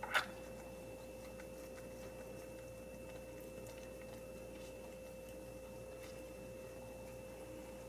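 Ragdoll mother cat licking her newborn kittens: faint soft ticks over a steady high-pitched hum, with one brief sharp sound just after the start.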